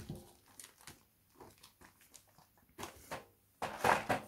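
Clear plastic blister trays being handled and set down: scattered soft clicks and rustles, with a louder plastic rustle near the end.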